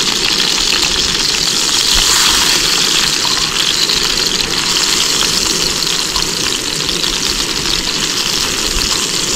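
Chicken pieces sizzling over an open campfire: a steady hiss.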